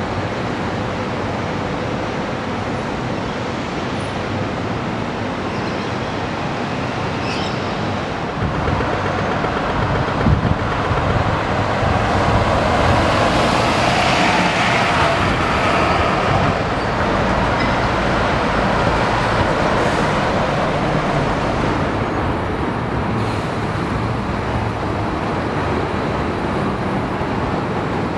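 City street traffic: a steady wash of road noise with motor vehicles passing, swelling as one goes by close about halfway through. There is a short knock about ten seconds in.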